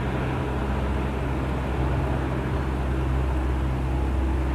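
A steady low motor hum over outdoor background noise.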